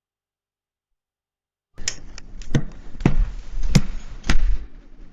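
Silence, then a series of sharp knocks and thuds starting about two seconds in, coming irregularly about every half second.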